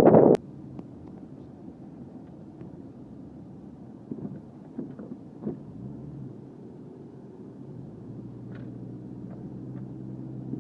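The 1998 Subaru Legacy Outback's flat-four engine running steadily at low revs, heard inside the cabin, with a few faint knocks. A loud rushing noise cuts off with a click just after the start.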